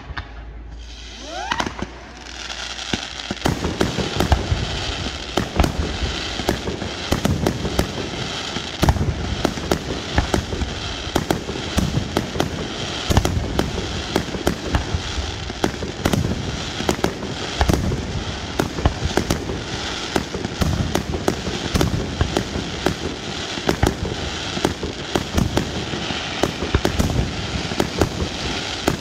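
Fireworks display: a rising whistle about a second and a half in, then from about three seconds on a dense, unbroken barrage of bangs and crackling from bursting aerial shells.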